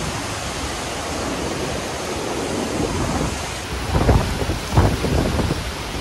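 Category 4 hurricane wind and driving rain, a loud steady rush of noise. Two hard gusts buffet the microphone about four and five seconds in.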